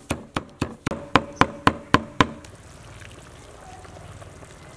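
Cleaver chopping dried sweet red peppers on a cutting board: a quick run of sharp, even knocks, about four a second, that stops about halfway through. A faint, even low noise follows.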